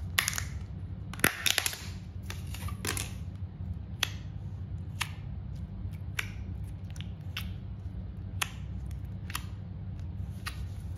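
Snap-on lid of a small plastic slime tub being pried open, with a quick cluster of clicks and crackles in the first few seconds. Then fingers press the slime inside the plastic tub, giving single sharp clicks about once a second. A steady low hum runs underneath.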